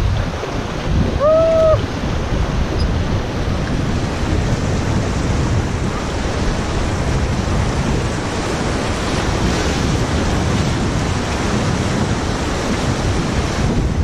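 River rapids rushing around an inflatable raft, with wind buffeting the microphone. About a second in, a brief cry rises and falls.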